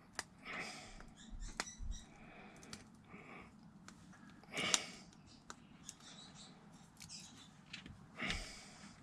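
Small plastic Lego bricks being handled and fitted together: scattered light clicks and rustles, with two louder rattling rustles about four and a half and eight seconds in.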